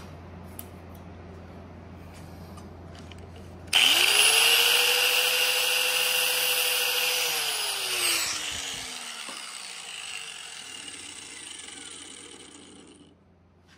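Electric side grinder (angle grinder) switched on about four seconds in, running at full speed with a high hiss for about three seconds while a piston ring end is ground to open its gap, then switched off and winding down, its pitch falling steadily as it spins to a stop over several seconds.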